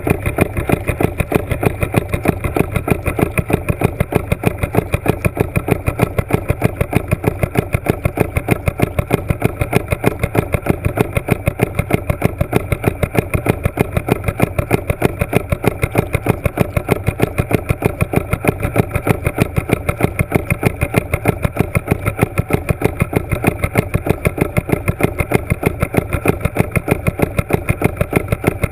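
A motor running steadily, heard through water, with a fast, even pulse that does not change.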